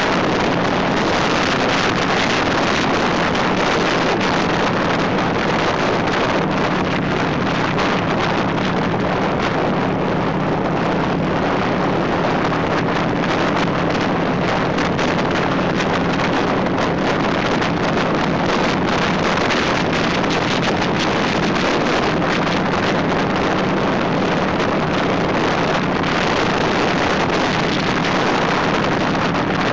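Cruiser motorcycle at steady riding speed: loud wind rushing over the microphone, with the engine's steady low drone underneath.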